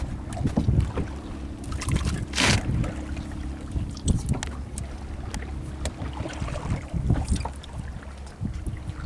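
Fishing boat's engine running steadily, with wind on the microphone and scattered small knocks and clicks from handling the fish and line. A short loud hiss comes about two and a half seconds in.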